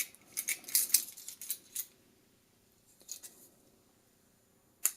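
Toy die-cast metal handcuffs being handled: light metallic clicks and rattles, a quick run of them in the first two seconds, a few more past the middle and one sharp click near the end.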